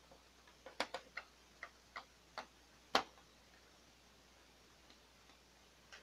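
Screwdriver driving a screw into the plastic chassis of a Canon PIXMA MG3510 printer: a string of small, irregular clicks over the first three seconds, the last one the loudest.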